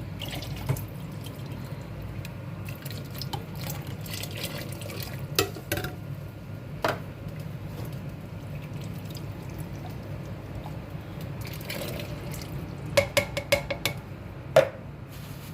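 Chicken stock being poured into a pot of banga (palm-fruit) sauce, with a few sharp clinks of a container or spoon against the pot and a quick run of knocks near the end.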